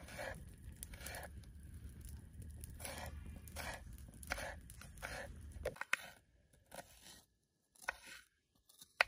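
Kitchen knife slicing tomatoes and onion on a bamboo cutting board: regular cutting strokes, about one and a half a second, with a few sharper chops near the end. A low background rumble stops suddenly about six seconds in.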